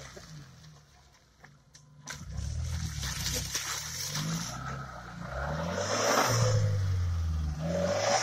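Suzuki Vitara off-roader driving through mud, its engine revving up and down as it pulls through. Twice in the second half its tyres churn and splash through mud and puddle water.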